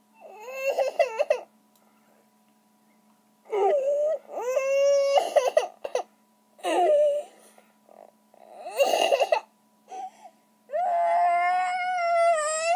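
Baby crying: several high wails with short pauses between them, the last held for about two seconds.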